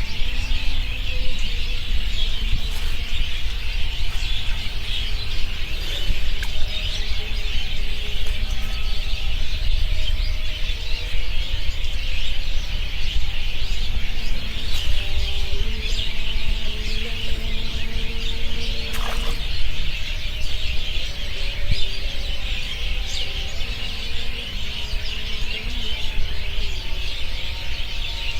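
A dense chorus of small birds chirping without a break, over a steady low rumble.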